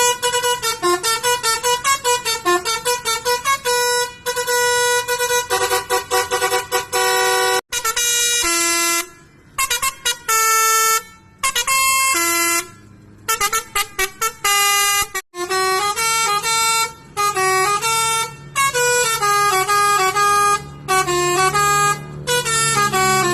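Several bus horns in turn, each sounding a quick run of changing notes like a short tune, honked over and over. The clips change abruptly a couple of times, with brief pauses between the honks.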